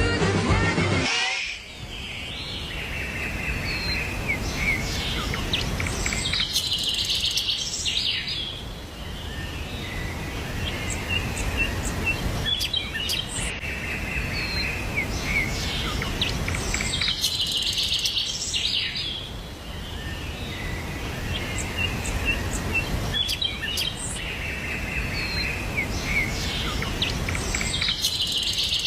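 Birds chirping and singing over a steady low rushing background, with a denser, louder burst of high song recurring about every ten seconds. A snatch of music plays for the first second or so.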